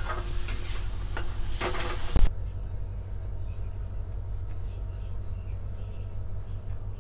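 A spatula stirring and scraping spice paste sizzling in a metal kadai, cut off about two seconds in by a short loud thump. Then a quieter outdoor background with faint, scattered high bird chirps.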